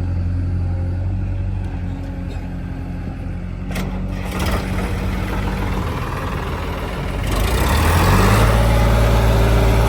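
Heavy diesel engine running steadily, then revving up and getting louder about seven seconds in. A brief sharp click is heard a little before the midpoint.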